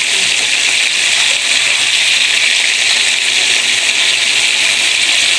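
Whole fish frying in hot oil in a pan: a loud, steady sizzle.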